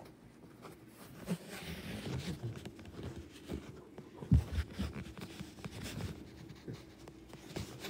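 Irregular dull thumps and rustling handling noise from a hand-held phone being moved about, with the loudest thump about four seconds in.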